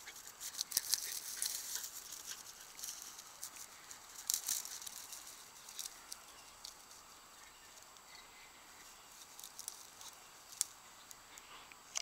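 Irregular crackling and rustling of dry grass and brush underfoot, in scattered clusters of short crackles, busiest in the first few seconds and again near the end.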